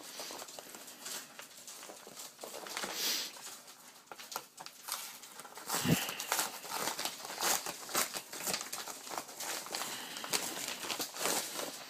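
Brown padded paper mailing envelope crinkling and rustling as it is handled, opened and reached into by hand, with a short low thump about six seconds in.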